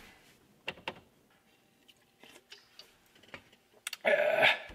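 Scattered light clicks and taps from hands handling the truck's dashboard trim, with a short louder sound near the end.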